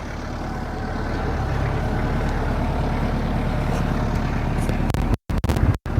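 A vehicle engine idling steadily with a low hum. The sound cuts out completely twice, briefly, near the end.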